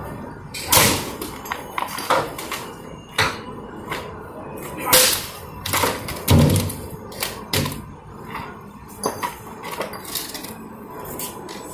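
Irregular heavy blows of a long-handled tool striking plastic spools of electrical cable, with knocks and clatter of the spools being pulled about and dropped. The hardest hits come about a second in and again around five and six and a half seconds in, the last a deep thud.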